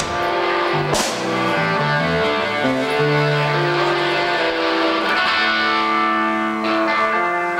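A live band playing guitar-led music, with sustained notes and chords that change every second or so, and one sharp hit about a second in.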